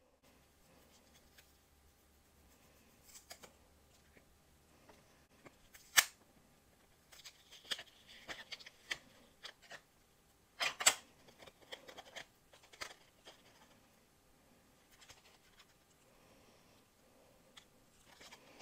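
Hands handling clear acrylic cutting plates, a thin metal cutting die and card stock: scattered light clicks and scratchy, papery rustling, with a sharp clack about six seconds in and another near eleven seconds.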